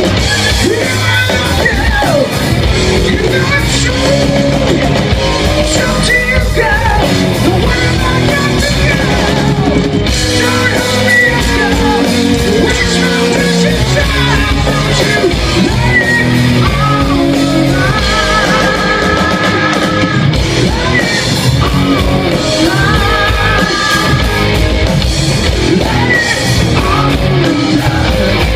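Live rock band playing loud, with distorted electric guitars, bass and drum kit, and a singer singing and yelling over it.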